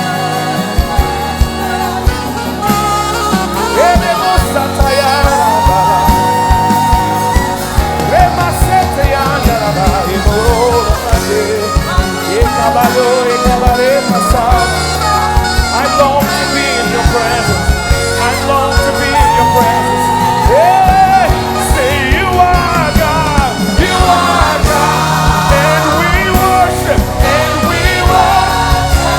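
Live gospel worship band with drums, with a singer's long held notes and slides over it.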